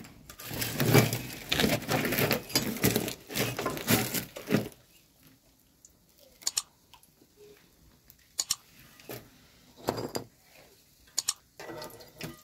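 Dumplings crackling in hot oil in a pan over a wood fire, with clatter from a metal skimmer, dense for about five seconds. After that only scattered clicks and taps remain.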